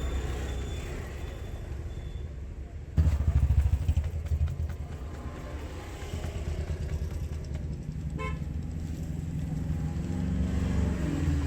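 Road traffic with a vehicle engine rumbling close by, suddenly louder about three seconds in, and a short horn toot about eight seconds in.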